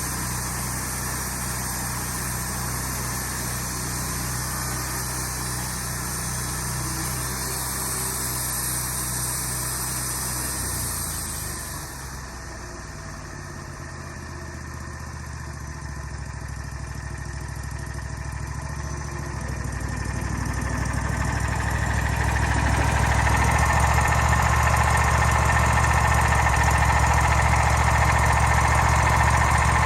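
Engine running steadily, throttled down about twelve seconds in, then speeding back up and running louder from about twenty seconds in.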